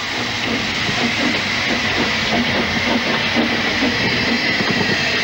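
Double Fairlie steam locomotive Merddin Emrys getting under way: a steady hiss of steam, with irregular puffs and knocks underneath.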